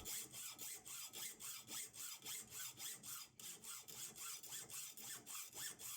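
A saw cutting through the cable of a combination bike lock held in a vise: faint, steady back-and-forth strokes.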